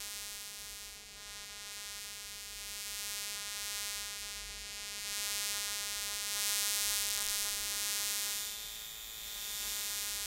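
Electromagnetic interference from an Elektron Digitakt drum machine, made audible by an Elektrosluch 3+ electromagnetic listening device: a steady electrical buzz of many stacked tones with a hiss on top, its level rising and falling.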